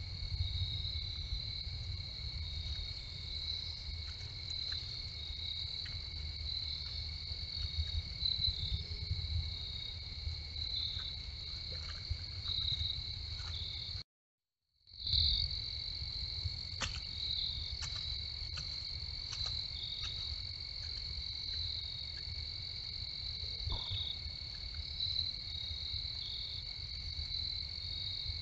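Crickets chirping in a steady, high, finely pulsing chorus over a low rumble. The sound cuts out for about a second midway, then the chorus resumes.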